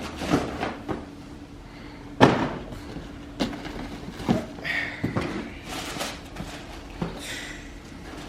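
Cardboard shoe boxes being handled and set down: a string of irregular knocks and thumps, the loudest about two seconds in, with brief rustling between them.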